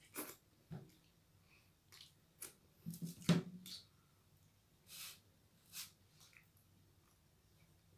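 Faint scattered mouth clicks and smacks with a couple of short breaths or sniffs from people who have just finished eating; the loudest smack comes a little after three seconds in.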